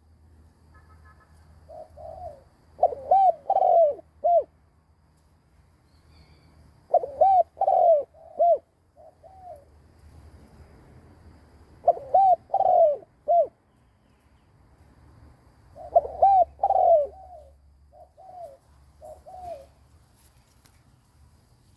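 Decoy spotted dove cooing in short repeated phrases of a few arching, low coos, four phrases in all with pauses of a couple of seconds between them: the cooing style keepers use to provoke wild male doves.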